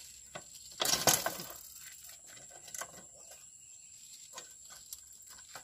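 Scattered light clicks and knocks of parts and tools being handled, with a louder rustling scrape about a second in.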